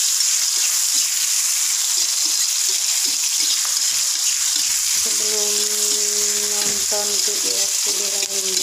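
Chopped garlic, chillies, tomato and spring onion sizzling in hot oil in a wok while a spatula stirs and scrapes them around the pan. About five seconds in, a steady pitched hum with overtones joins the sizzle.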